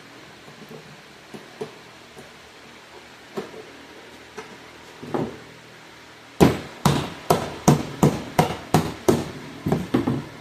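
A few faint knocks of handling, then a quick run of about a dozen sharp hammer blows on thin sheet-metal tabs, roughly three a second, starting a little past halfway.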